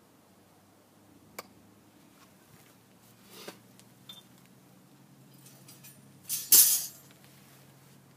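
Hand handling of fire-making gear and kindling: a sharp click, a brief scrape and a light tap, then a loud short hissing rasp about six and a half seconds in, over a faint low hum.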